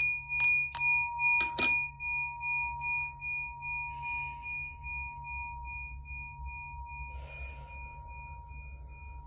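A small metal ringing instrument, like a singing bowl or chime, struck four times in quick succession, then left ringing with a clear, high, slightly pulsing tone that slowly fades. Soft breaths about four seconds in and again near seven.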